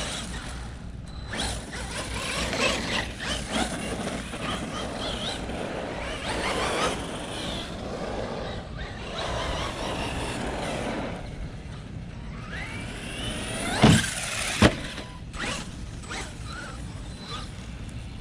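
Brushless electric motor of a 1/10-scale RC truck running on a 3S LiPo, whining up and down in pitch as it speeds up and slows, with drivetrain and tyre noise throughout. Two sharp knocks come about two-thirds of the way in.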